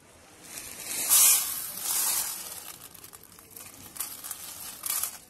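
Wheat grains rustling and rattling on a metal plate as they shift, in swells: loudest about a second in, again near two seconds, with smaller rattles near the end.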